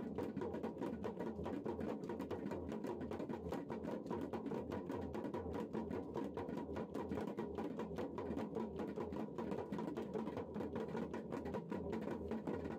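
Fast, steady drumming on a double-headed hand drum, several even strokes a second, with a faint steady tone underneath.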